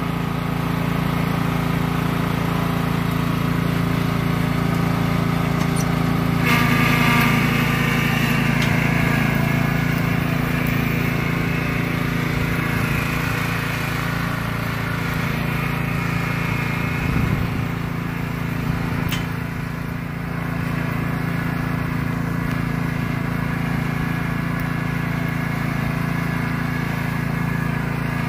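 Lawn tractor engine running steadily under load as it tows a log in a wheeled logging arch. Its sound grows harsher about six seconds in, as the tractor sets off.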